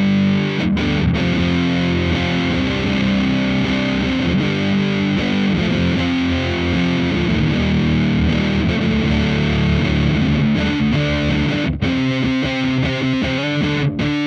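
Electric guitar, a Fender Stratocaster on its middle pickup, played through a FuzzHugger FX Lab Ratchet fuzz pedal into a Laney VC30 amp: thick, fuzzed-out sustained notes and chords. In the last couple of seconds the tone breaks up into a choppy, sputtering texture, the pedal's gating.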